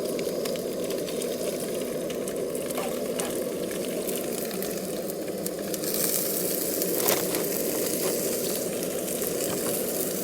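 Bologna slices frying in a pan with cheese melting on top, sizzling with scattered pops over a steady low rush; the sizzle grows brighter about six seconds in.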